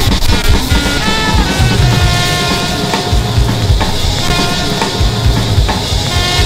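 Experimental turntablism: vinyl records played and manipulated on turntables, making a loud, dense collage of short held pitched notes over irregular low thumps.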